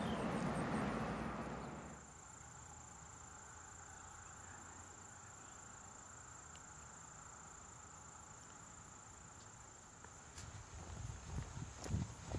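Insects trilling faintly in one steady high-pitched note. A louder rushing noise fades out over the first two seconds, and soft thumps begin near the end.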